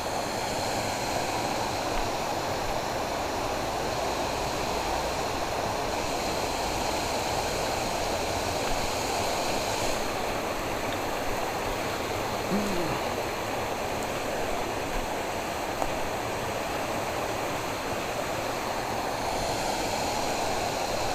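Steady rush of flowing water in a canal.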